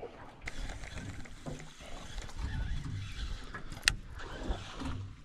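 Rumble of water and handling in a small aluminium boat, with scattered soft knocks and one sharp click about four seconds in.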